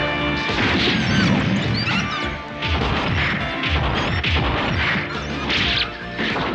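Cartoon fight sound effects: a rapid flurry of crashes and hits, with music underneath, as a pack of dholes attacks.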